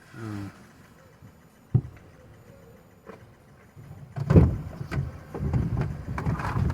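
Inside a car: a short voiced sound at the start, a single sharp knock a little under two seconds in, then from about four seconds in loud rumbling handling noise with several knocks close to the microphone.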